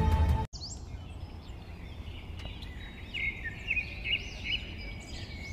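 Background music cuts off abruptly about half a second in. It gives way to a forest ambience of birds chirping over a low steady noise, with the calls busiest in the middle.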